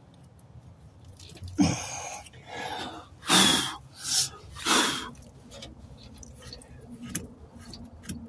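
A person blowing five short puffs of breath to clear dirt off the top of a fuel pump module, the first puff opening with a light knock. A few faint ticks follow.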